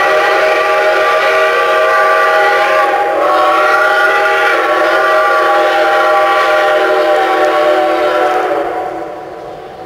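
Steam whistle of a Shay geared steam locomotive blowing a long, loud chord. It breaks briefly about three seconds in, sounds again, and dies away near the end.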